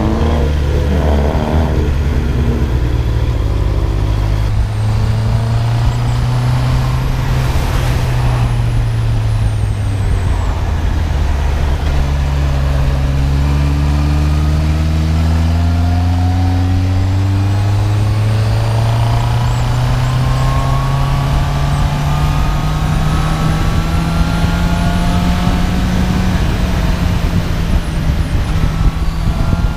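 Honda CB650R's inline-four engine on its stock exhaust, ridden under way. Its pitch wavers and dips over the first ten seconds or so, then rises slowly and steadily for most of the rest as the bike pulls harder.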